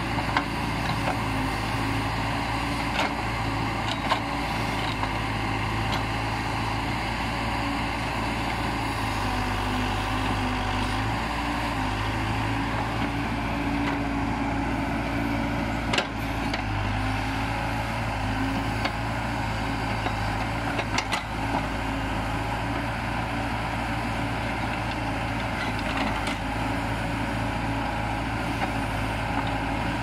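Case 580D backhoe loader's diesel engine running steadily under hydraulic load while its backhoe arm digs, its pitch shifting slightly as the load changes. A few short sharp knocks, the loudest about two-thirds of the way through.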